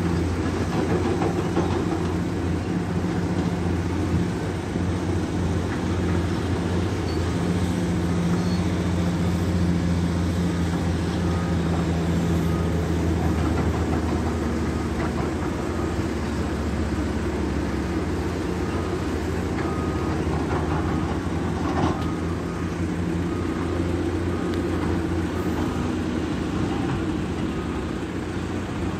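Caterpillar 336 hydraulic excavator's diesel engine running steadily as the machine climbs a rocky slope on its tracks. A faint regular beeping joins about halfway through.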